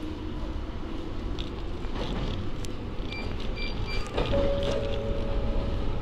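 Ohmi Railway 900-series electric train running along the line, heard from the cab: a steady low rumble of the wheels on the rails. A few short high beeps come through about halfway, and a steady tone holds for about a second and a half near the end.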